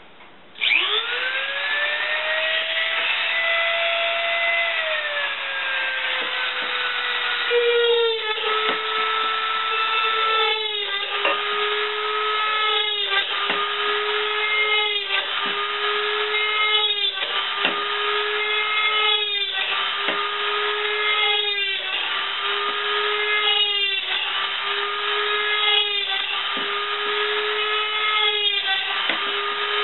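Dremel rotary tool starting up with a rising whine, then drilling a series of holes in the bottom of an aluminium can: the whine dips briefly about every two seconds as the bit bites through the metal for each hole.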